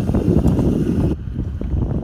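Wind buffeting the microphone: a loud, ragged low rumble, with the fainter hiss above it dropping away about halfway through.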